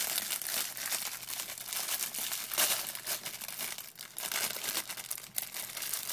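The plastic wrapper of a Hostess Suzy Q's snack cake crinkling in the hands as it is torn open, with irregular crackles throughout.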